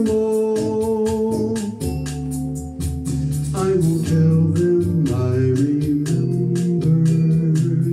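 Instrumental passage on an electronic keyboard with an organ sound: sustained chords and a melody line over a steady beat of light percussive ticks.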